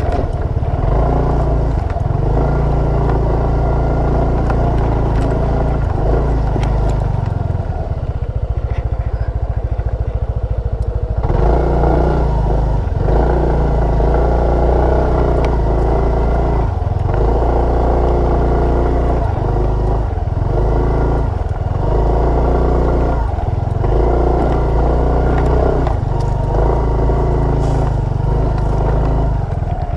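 Small motorcycle engine running as it is ridden off-road, the throttle opening and easing every few seconds so the engine note rises and falls.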